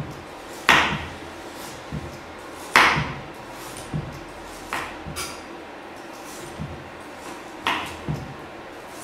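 Chef's knife slicing carrots into rounds on a plastic cutting board: irregular knocks of the blade meeting the board, roughly one a second, the loudest about a second in and about three seconds in.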